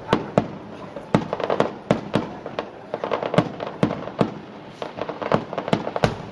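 Aerial fireworks shells bursting in a rapid, irregular series of sharp booms, with bursts of crackling between them.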